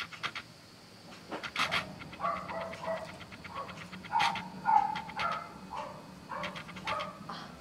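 Foil tape being peeled off the skin of the cheek, crackling in short clicks, mixed with short high-pitched whimpering cries.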